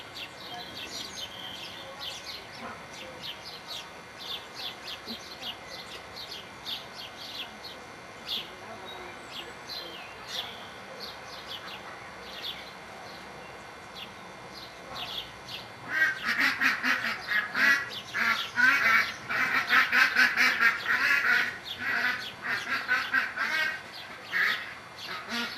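Birds calling: a steady run of short, high chirps, then about two-thirds of the way in a much louder, fast series of lower calls.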